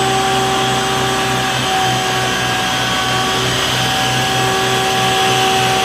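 Small electric motor running steadily with an even whine.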